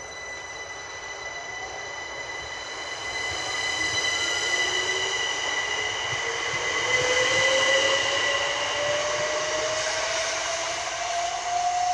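Southern Class 377 Electrostar electric multiple unit pulling out and accelerating away: its traction whine climbs steadily in pitch over several steady high tones and wheel-on-rail noise. It grows loudest a little past halfway as the train passes.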